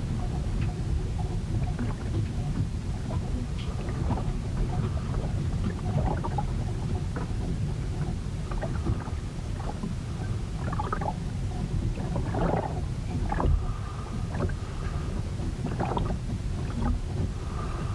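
Ship in a storm: a constant low rumble of wind and water against the hull, with scattered short knocks and creaks from the vessel.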